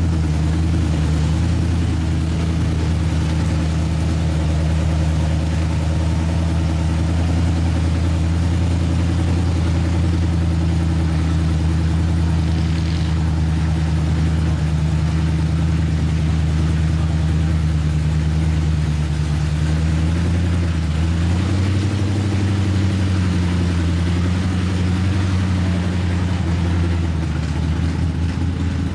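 Mud truck engine idling steadily at close range, its pitch wavering up a little about twenty seconds in before settling again.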